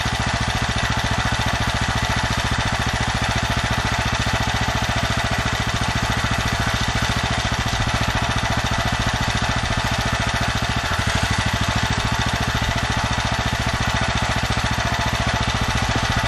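Generator engine running steadily on HHO (hydrogen-oxygen) gas from an electrolysis cell, with an even, rapid firing rhythm.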